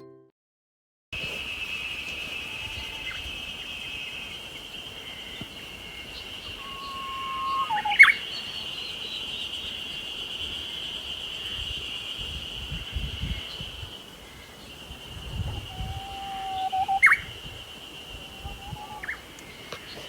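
Japanese bush warbler singing twice: each song a long held whistle that breaks into a quick sharp flourish, about 8 seconds in and again near 17 seconds. A steady high-pitched buzz runs behind it.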